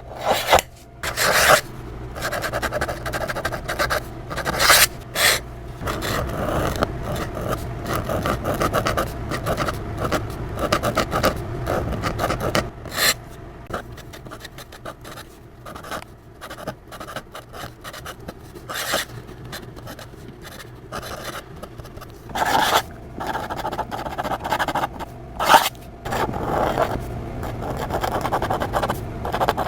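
Calligraphy pen scratching across paper in continuous writing strokes, with several quick, sharp louder flicks where strokes are dashed off, and a softer stretch of writing midway.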